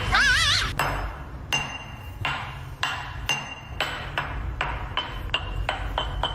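A wavering, warbling whistle-like tone in the first second, then a series of sharp metallic strikes, each with a short ring after it, coming faster toward the end.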